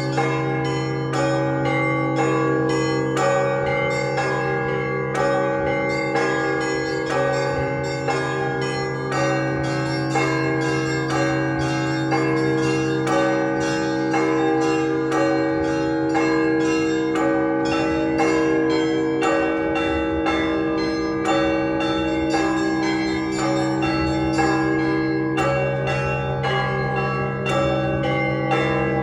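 Festive Russian Orthodox ringing on a set of 48 church bells: a continuous, rapid run of small-bell strikes over the long, steady hum of the large bells.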